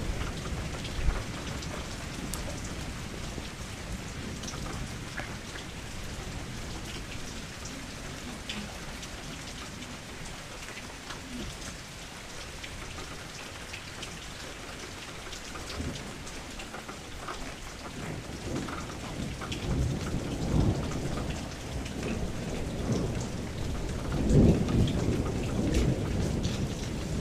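Steady rain falling, with drops ticking on a surface, and thunder rumbling. The thunder builds in the second half and is loudest a few seconds before the end.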